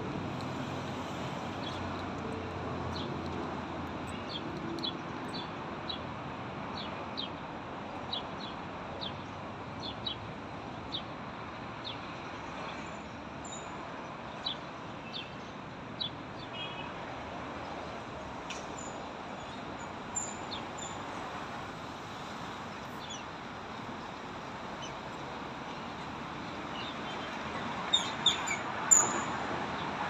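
Small birds chirping in short, high notes, one every second or so, over a steady outdoor street hum. A few louder chirps come near the end.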